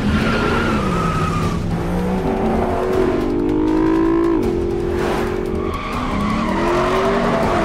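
Cars racing in a chase, their engines revving hard with the pitch rising and falling several times, and tyres skidding.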